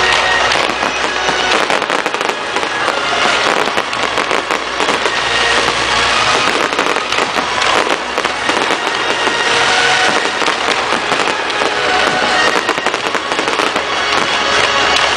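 Large fireworks display, with many shells and crackling stars bursting in a dense, unbroken barrage of pops and crackles.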